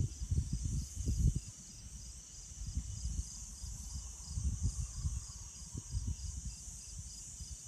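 Gusting wind buffeting the microphone in irregular low rushes, strongest in the first second or so and again midway. Under it runs a steady, high, evenly pulsing chorus of night insects such as crickets.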